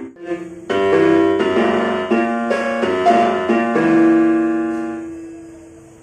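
Casio SA-77 mini keyboard in its piano voice, played by a small child: a quick string of single notes and clustered notes, then one low note held and left to fade away.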